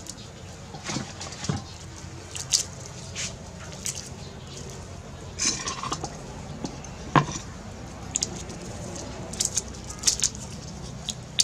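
Garlic cloves being peeled by hand: the papery skins crackle in short, irregular bursts, with a few light knocks as cloves are set down on a wooden chopping board.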